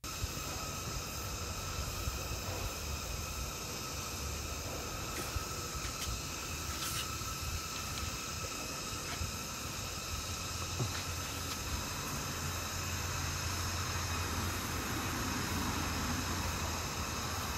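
Steady background hiss with a low hum and faint steady high tones, broken by a few faint clicks.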